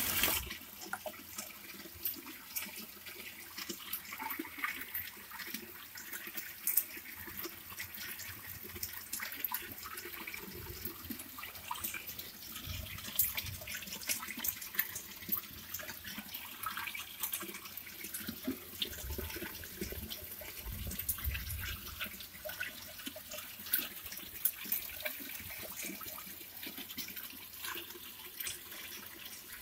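Rainwater from the roof pouring out of a PVC pipe into a plastic storage drum, splashing steadily into the water already collected in it.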